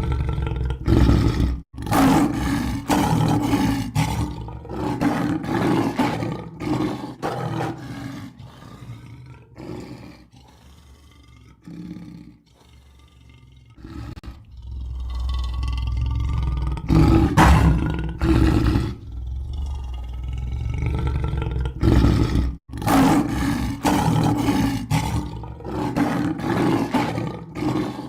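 Lion roaring in repeated bouts, each a run of deep, rhythmic grunting roars. It fades to softer grunts for a few seconds in the middle, then builds again. The sound cuts out abruptly twice, at about 2 s and about 23 s.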